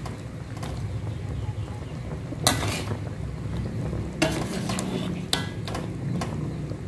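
Metal spatula scraping and knocking against an aluminium wok as chicken pieces in coconut-milk sauce are stirred, with sharper scrapes about two and a half seconds in and several more between four and five and a half seconds. A steady low hum runs underneath.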